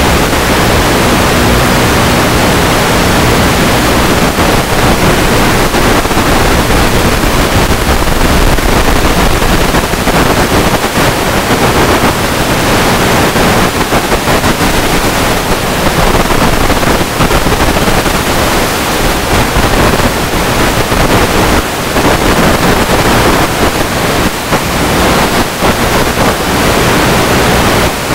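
Steady loud rushing noise of wind over the onboard camera's microphone as the Multiplex EasyStar 2 RC plane flies and banks.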